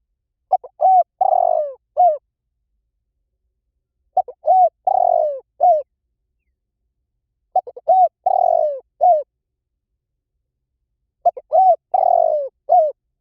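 Spotted dove cooing: four repeated phrases, each a couple of quick short coos, one longer drawn-out coo, then a short final note, about every three and a half seconds.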